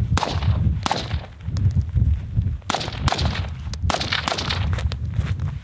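Type A 12.5-inch Contractor AR-15 rifle firing a string of single shots, a second or less apart and unevenly spaced, as the shooter moves between firing positions.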